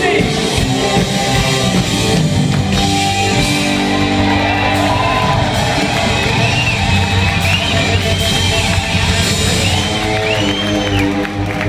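A rock band playing live in a concert hall, with electric guitar, bass, keyboards and drum kit on sustained chords and held notes.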